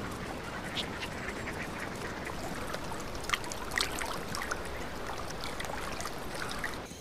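A flock of sandgrouse calling in many short notes, with wings flapping and water splashing as the birds land and bathe in shallow water. A few calls about three to four seconds in stand out louder.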